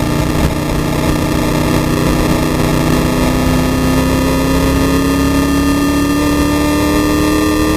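Race car engine heard from inside the cockpit, held under load as the car accelerates. Its pitch climbs slowly and steadily, with heavy wind and road noise throughout.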